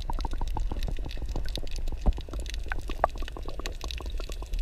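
Water heard through a submerged action-camera housing: a muffled low rumble with many small clicks and crackles of bubbles and moving water.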